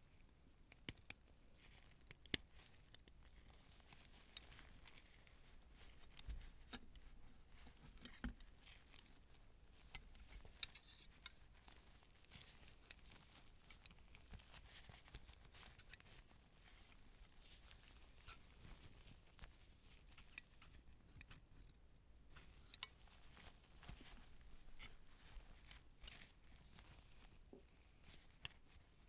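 Quiet, scattered sharp clicks and snips with soft rustling, as of metal surgical instruments and scissors being handled.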